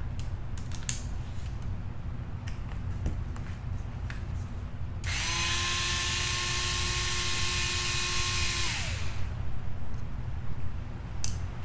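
Cordless screwdriver running for about four seconds, backing out one of the screws over the RC truck's steering rack, then winding down with a falling pitch. Light clicks of tools and plastic parts being handled come before and after, the sharpest near the end.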